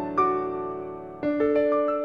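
Soft background piano music: a note struck a moment in, then a chord a little past halfway followed by a few quick notes, each left to ring and fade.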